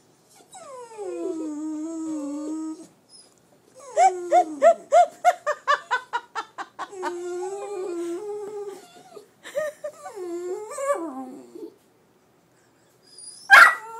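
A chiweenie and a Jack Russell terrier whining, worked up at the sight of a rabbit: long high whines that slide down in pitch, a quick run of about a dozen short yips about four seconds in, then more drawn-out whines. A sharp knock near the end.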